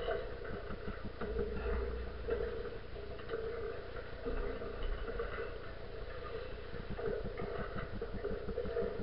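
Wind buffeting a camera mounted aloft on a sailing yacht under sail, a low rumble that swells and eases, with a quick irregular rattling and ticking from the mount and rigging.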